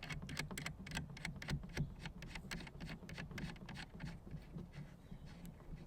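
Threaded AlexLoop antenna pole sections being screwed together by hand: a rapid run of small clicks and scrapes that thins out after about two and a half seconds.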